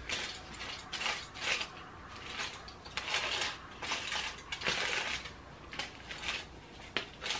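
Aluminium foil crinkling and rustling in short, irregular bursts as a foil strip is handled and bleach is brushed onto hair laid on it.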